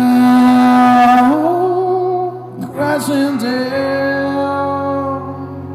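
Live rock song: a male singer holds long sung notes into the microphone, in two phrases with a short break about two and a half seconds in, over steady instrumental backing.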